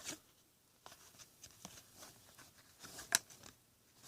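Trading cards being handled: faint rustling and light taps of card stock, with one sharper click about three seconds in.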